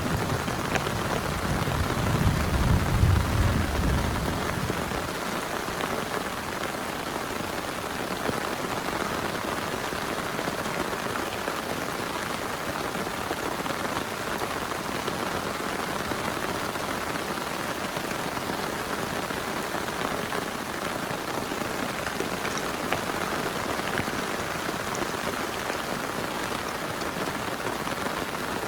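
Heavy rain falling steadily. A low rumble of thunder carries over at the start and dies away about five seconds in.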